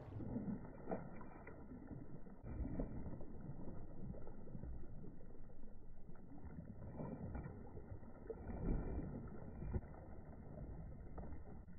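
Muffled low rush of moving river water with wind on the microphone, with a few brief louder swells.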